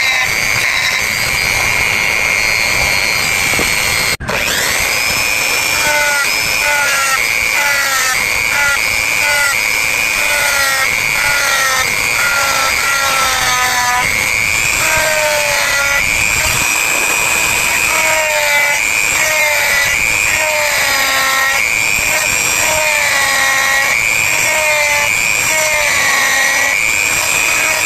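Small electric rotary tool (die grinder) running at high speed, a steady high whine whose pitch dips and recovers again and again as the bit is pressed into the coconut shell to carve it. The sound breaks off for an instant about four seconds in.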